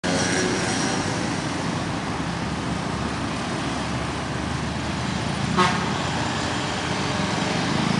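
Steady road traffic of motorcycles and cars passing close by, with one short horn toot about five and a half seconds in.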